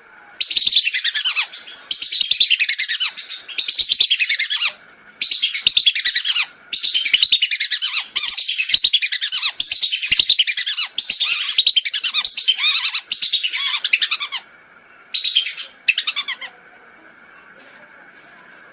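Whistling ducks (belibis) calling in a lure recording: about eleven loud bursts of many quick, shrill whistles sliding down in pitch, each burst one to two seconds long with short gaps, stopping a couple of seconds before the end. A faint steady tone runs underneath.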